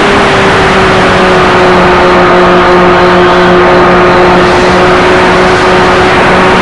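Motors of a radio-controlled model Partenavia heard from its onboard camera: a steady, loud drone with a faint dip in pitch early on, under heavy wind rush.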